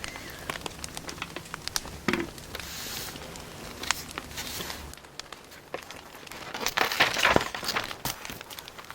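Firewood burning, crackling with scattered sharp pops, and a louder stretch of rustling about seven seconds in.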